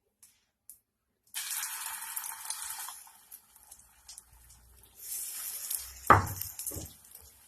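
Egg omelette mixture sizzling as it is poured onto a hot tawa greased with ghee, starting about a second in, with a second burst of sizzling later. Two sharp knocks near the end.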